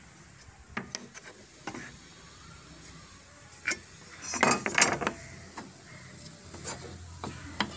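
Light clicks and taps of a steel try square and marking tool being set down and slid on teak boards, a few separate knocks with a louder run of knocks and rubbing just past the middle.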